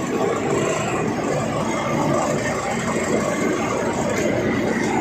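Truck engine running steadily at low revs.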